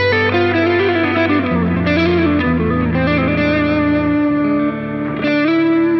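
Electric guitar through a lightly overdriven crunch tone on a Jazz Rivet 120 amp model, with subtle delay and reverb. Picked chords ring out, changing every second or two.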